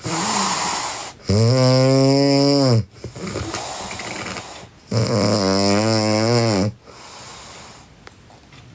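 A girl snoring: two long snores with a steady buzzing pitch, each about a second and a half, with breathy breaths between them. The last couple of seconds are quieter breathing.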